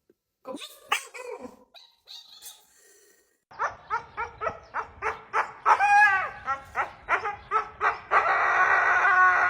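A dog barking in a quick repeated series, about three barks a second, starting a few seconds in. Near the end the barks run into one long, drawn-out howling cry.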